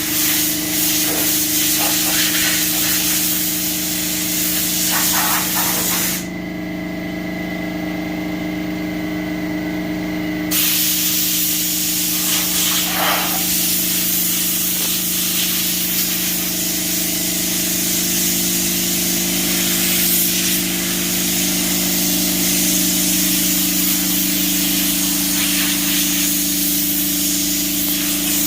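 Compressed air hissing steadily from an air blow gun as dust is blown off a freshly sanded car body. The blast stops for about four seconds about a quarter of the way in, then starts again. A steady motor hum runs underneath throughout.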